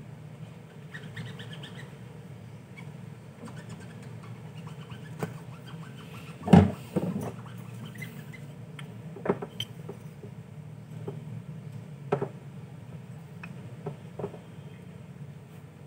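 Scattered light clicks and knocks from small metal hand tools and a silicone index being handled at a workbench, over a steady low hum. The loudest knock comes about six and a half seconds in.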